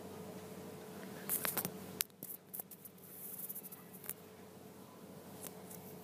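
Steady electrical hum with a few scattered small clicks and short rustling hisses. The rustles are loudest between about one and two seconds in.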